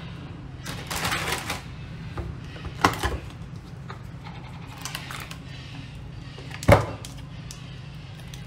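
A plastic yogurt tub handled on a stainless-steel counter: a rustle and a click as its snap-on lid comes off, then a sharp knock about two-thirds of the way through, the loudest sound.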